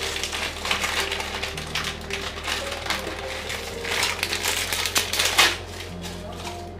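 Crinkling, crackling rustles and irregular clicks of ingredients and packaging being handled by hand, over faint background music.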